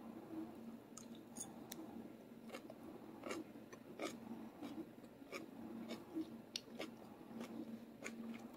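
Faint chewing of a mouthful of grilled galbi beef and kimchi: soft, irregular crunchy clicks over a faint steady hum.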